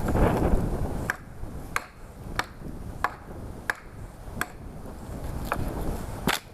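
A bushcraft knife striking in a steady rhythm, eight sharp clicks about two-thirds of a second apart, while starting a fire. Wind rumbles on the microphone in the first second.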